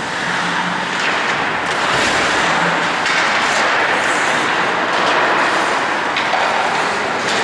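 Steady rushing noise of hockey skates gliding and scraping on the ice during play, with a sharper skate scrape about four seconds in.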